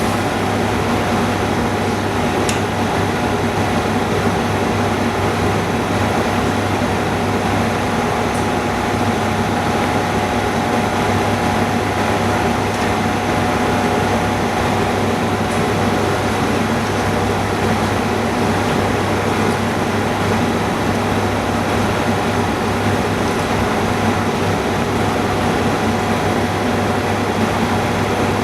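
Steady mechanical hum and hiss of running machinery, with a few faint light clicks.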